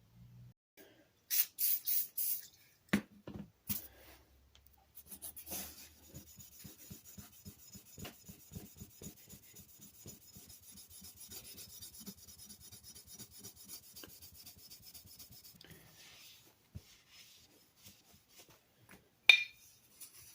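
Sandpaper rubbing by hand on a cast-iron hand plane body: a few quick, loud scrubbing strokes, then about ten seconds of steady, rapid rubbing, with a sharp knock near the end.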